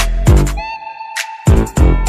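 Music with a heavy kick-drum beat over a sound system. About half a second in, the beat drops out for nearly a second, leaving a single held pitched note, then the drums come back in.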